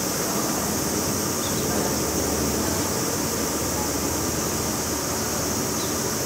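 Steady, unbroken high-pitched drone of a cicada chorus over a low background rumble. No owl call is heard.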